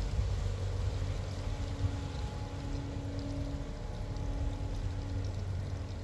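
Inland cargo ship's diesel engine running at low speed with a steady low rumble, with water churning from its propeller wash; a faint steady hum joins about a second and a half in and drops out near the end.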